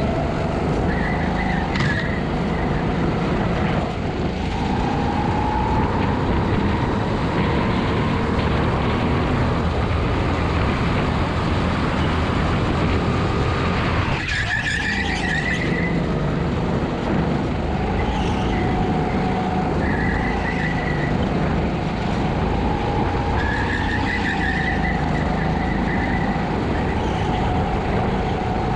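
Kart's Honda GX200 single-cylinder four-stroke engine running hard on track, its pitch rising and falling with the throttle through corners. The revs drop sharply about 14 seconds in, then climb again. A few brief high squeals are heard along the way.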